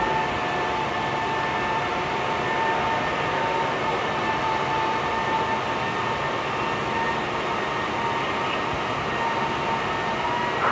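Diamond tool spinning in a granite CNC machine's spindle while an abrasive dressing stick is swept against it: a steady grinding hiss with a steady whine over it. This is the tool being dressed to take the lines out of its diamond face.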